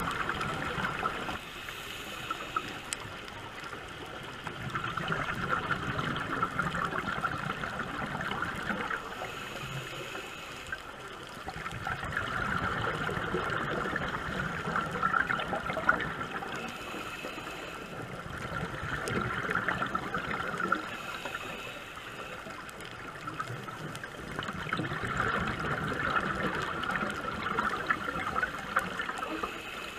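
Scuba diver breathing through a regulator underwater: bursts of exhaled bubbles crackle and gurgle, swelling about every six or seven seconds with quieter breathing-in stretches between.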